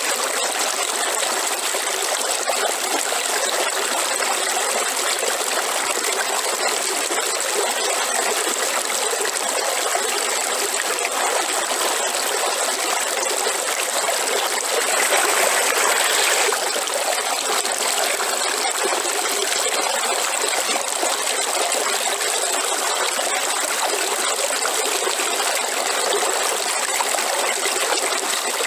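River water flowing steadily, briefly a little louder about halfway through.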